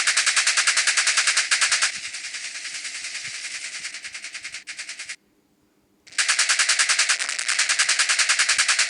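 Machine-gun fire sound effect: a rapid, even stream of shots at about a dozen a second. It is loud at first, quieter from about two seconds in, breaks off for about a second in the middle, then comes back loud.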